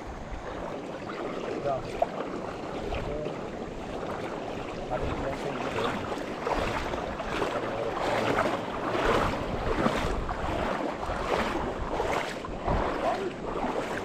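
River water rushing and splashing, with a run of repeated splashes through the second half, over some wind on the microphone.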